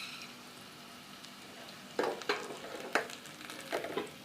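Onions and tomatoes frying in hot oil in a pan with a steady sizzle. From about two seconds in, a spoon scrapes and knocks against the pan several times as the mixture is stirred.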